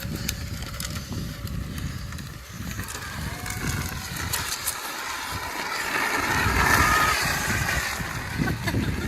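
A motor vehicle on the move, its engine note climbing and growing louder through the middle before easing off, over rough, gusty low rumble like wind on the microphone.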